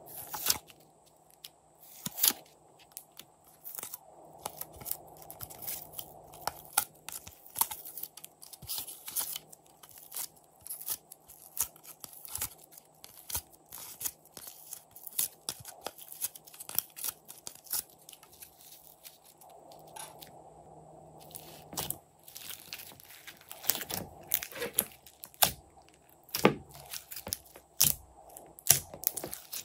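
Hands handling slime and its clay add-ins, then kneading the mixed slime: irregular crackling clicks and sticky pops, coming thicker and louder in the last several seconds as the slime is worked.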